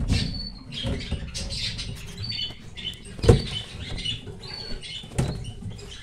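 Knocks and rattles of the sandwich-panel bird cage being handled, with a sharp knock about three seconds in and another near five, over small cage birds chirping in short high calls.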